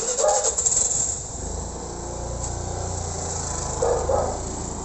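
A heap of fresh cheera (amaranth greens) rustling as it is handled, a dry hiss that sets in suddenly and fades within about a second. Then a low, steady rumble like passing traffic.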